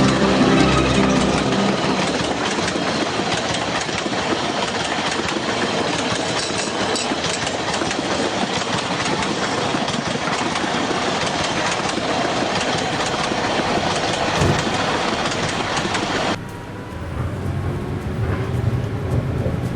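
Train running along the rails, a steady dense rattling noise, with a low locomotive engine hum fading out in the first couple of seconds. Near the end it cuts suddenly to a quieter recording of a locomotive's low engine hum.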